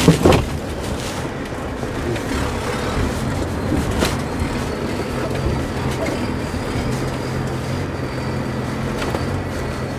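Off-road vehicle's engine running steadily under load as it is driven hard over rough terrain. There is a sharp knock right at the start and another about four seconds in.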